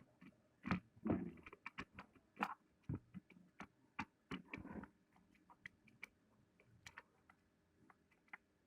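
Irregular small clicks, taps and knocks of hard plastic and metal parts being handled while an electric drill is put back together by hand; no motor running.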